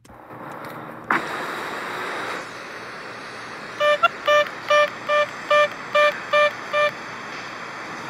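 Bicycle horn beeping eight times in quick succession, about two and a half beeps a second, all on one steady mid-pitched tone, over outdoor background noise.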